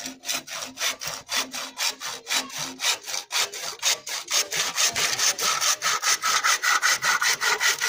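Hand saw cutting across a green bamboo pole in quick, even back-and-forth strokes, about four to five a second, getting somewhat louder toward the end.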